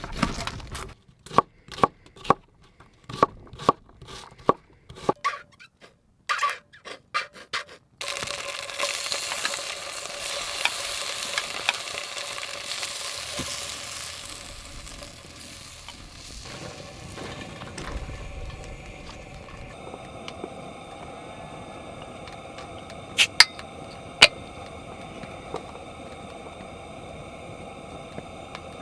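About a dozen sharp knocks over the first eight seconds, then a steady sizzle of potatoes frying in a cast-iron Dutch oven, with two sharp clicks near the end.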